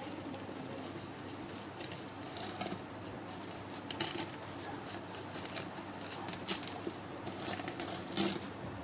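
Scattered light clicks and taps from a toy piggy bank being handled, a few at irregular intervals, the loudest near the end.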